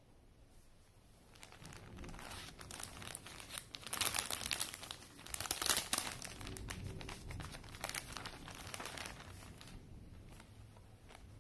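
Clear plastic packaging bag crinkling as it is opened and handled. It starts after a second or so, with the loudest crackles about four and six seconds in.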